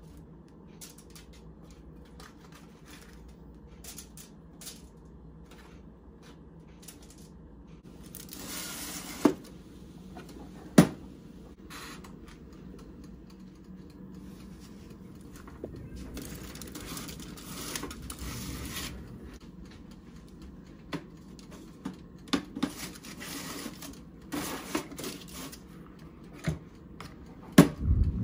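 Kitchen handling sounds: scattered clicks and knocks with stretches of rustling, two sharp knocks about nine and eleven seconds in, and a cluster of clattering knocks near the end.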